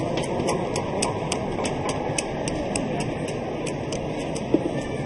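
Indoor speed skating arena ambience: a steady background hubbub with a fast, even ticking of about three high clicks a second.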